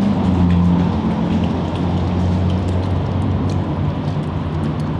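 Storm water rushing and splashing through a metal grate in a concrete drain: a steady, loud rush with a low rumble and a few small splashes.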